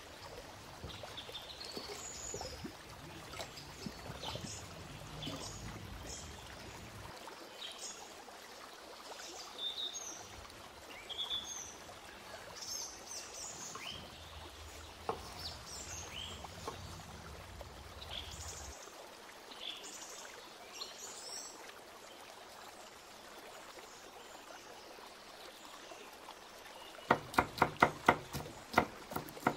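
Birds chirping over a steady rush of running water, with a rapid run of about a dozen sharp knocks near the end.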